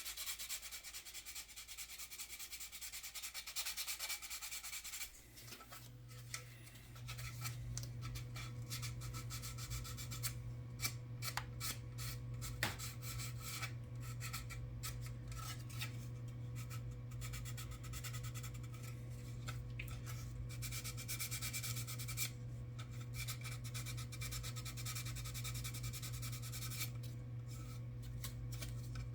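Wet sandpaper rubbing back and forth over dried putty on a plastic model car body, in uneven strokes that stop and start. A steady low hum comes in about five seconds in and keeps going underneath.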